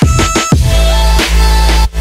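Background music with a heavy bass line and a steady beat of drum hits, dropping out briefly near the end.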